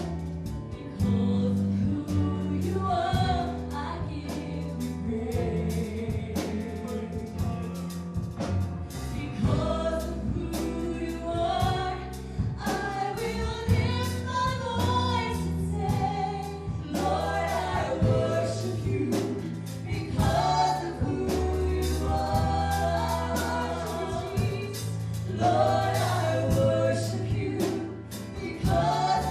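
Live worship music: a band with bass and drums accompanying group singing of a gospel-style praise song.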